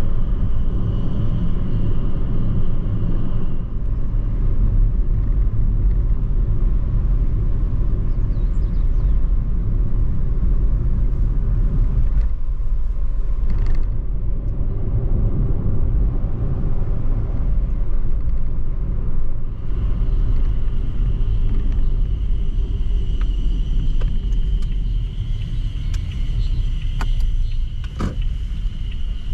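Car driving along a road, a steady low rumble of engine and tyre noise.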